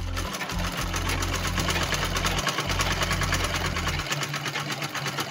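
Old-style black domestic sewing machine on a treadle table stitching a zip seam through leather and lining, a fast, even clatter of needle strokes.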